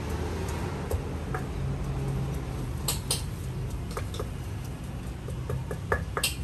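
Irregular light clicks and taps of cooking utensils, with two sharper clicks near the middle and one near the end, over a steady low hum.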